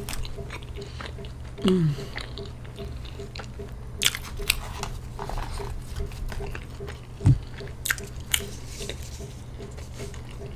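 Close-miked eating: biting and chewing fast food, with scattered wet mouth clicks and soft crunches. A short falling vocal sound comes about two seconds in, and a dull thump about seven seconds in.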